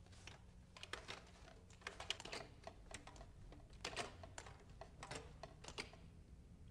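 Typing on a computer keyboard: faint key clicks coming in short, irregular flurries.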